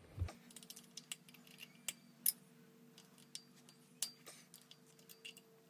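Faint, scattered light metallic clicks and taps, the loudest about two seconds in, as hands and a tool work among the rocker arms and pushrods on the cylinder head of a Kubota V2203 diesel engine.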